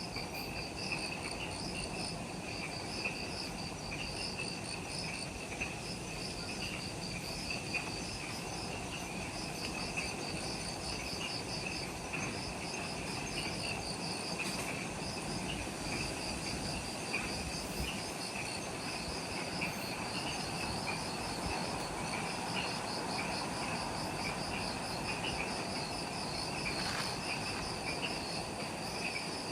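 A chorus of forest insects at dusk, several kinds chirping and trilling at once. A steady high chirp runs under a faster pulsing trill that comes and goes.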